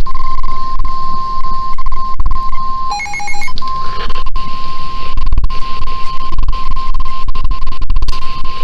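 NOAA Weather Radio warning alarm tone: one steady beep near 1 kHz held for several seconds over radio hiss. It is broken about three seconds in by a short burst of higher pulsed tones. The tone signals that a warning message is about to be broadcast.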